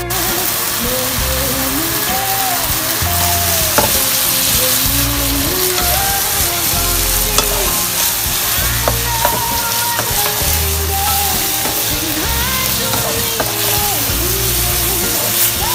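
Meatballs, pork and liver sizzling as they stir-fry in a hot wok in soy-and-sugar seasoning, with a wooden spatula scraping and knocking against the pan now and then. Background music plays underneath.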